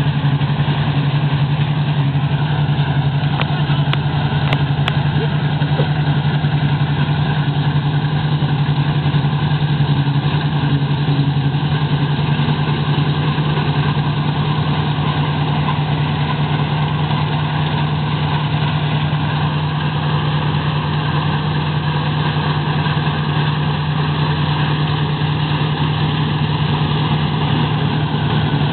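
Claas Tucano 320 combine harvester running steadily while cutting grain: its engine and the header and threshing machinery make a constant drone with a strong low hum.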